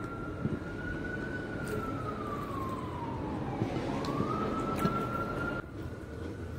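A siren wailing: a single tone rising and falling slowly, dipping once about three and a half seconds in and climbing back up, over a steady low background rumble.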